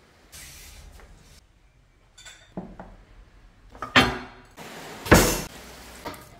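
Kitchen dishes and utensils clinking and clattering: a short hiss at the start, then a few separate sharp knocks, the loudest about five seconds in.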